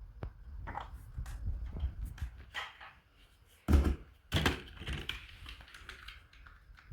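Handling noise from unboxing toys: rustling and clicking of packaging and plastic, with two heavier thumps a little past the middle.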